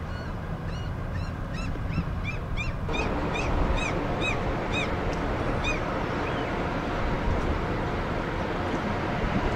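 Low, steady rumble of a passing ship's engine, growing louder and noisier about three seconds in. Over it a bird calls in short high notes, about twice a second, stopping near six seconds.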